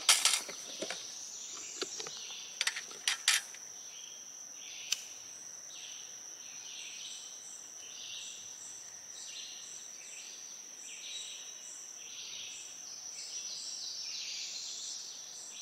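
Steady high-pitched insect drone with rhythmic chirping repeating a little more than once a second. In the first few seconds come several sharp metallic clicks and clinks, as the tin lid is taken off a citronella candle.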